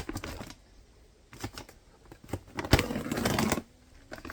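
A feed sack being opened by pulling its stitched closure, ripping and clicking in short stop-start runs with a sharp snap near three seconds in, the stitching not unravelling smoothly.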